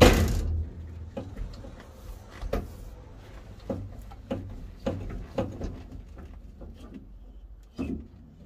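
A heavy thud as a Corvair's steering wheel is struck to work it loose from the column, then scattered lighter knocks and clicks about once a second.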